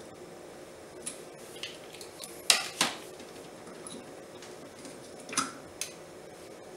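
Sharp metallic clicks and taps of a small screwdriver and mount screws against the metal bayonet mount of a Samyang 14mm f/2.8 lens as the mount is fitted back and screwed on. A few light clicks, two loud ones a little before halfway through, and two more near the end.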